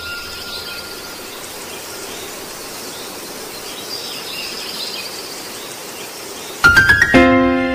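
A steady hiss of noise with faint high chirps, then near the end a quick run of loud struck notes that opens into a held chord of background music.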